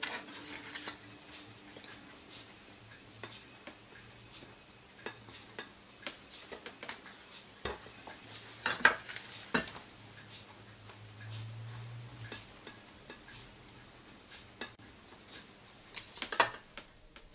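Table knife scraping over slices of bread and clinking against a china plate in short, scattered strokes, with a sharper clink about nine seconds in and a quick run of clinks near the end, over a faint steady low hum.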